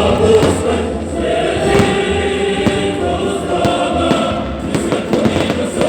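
A choir singing long held notes with music, over scattered bangs and crackles of fireworks.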